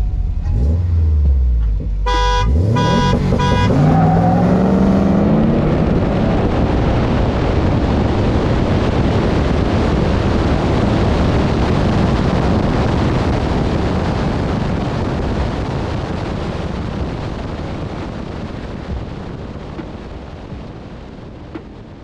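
A car: a low rumble, then a few short beeps about two seconds in. The engine then revs up with a rising pitch into a loud rushing noise that slowly fades away.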